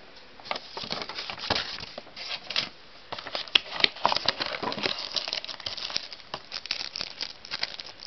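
Packaging being handled, crinkling and rustling in a dense run of irregular crackles and clicks as items such as the paper manuals and the installation CD are taken out of the box.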